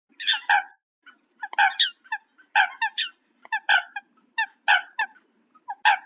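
Domestic fowl giving a run of short, repeated pitched calls, about two or three a second.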